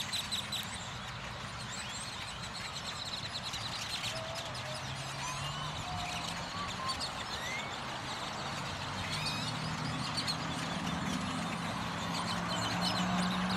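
Large flock of great-tailed grackles calling together: a dense chorus of chatter with many short whistles and rising squeaks on top. A low steady vehicle hum runs underneath, growing a little louder near the end.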